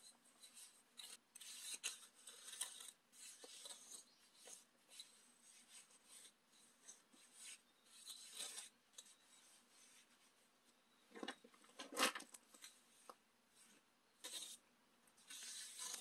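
Faint scraping and rubbing of a small wooden hand float worked over wet mortar in short, irregular strokes, smoothing and packing it. About twelve seconds in there is a sharper knock, the loudest sound.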